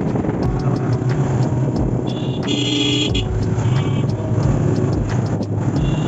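Road vehicle running with steady engine and traffic noise, and a horn honking for about a second a little over two seconds in.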